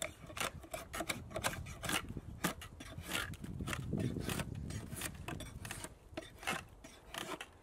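Draw knife shaving a green wood billet clamped in a shaving horse: a quick, uneven run of short scraping cuts, taking more off one side to straighten the billet toward a cylinder.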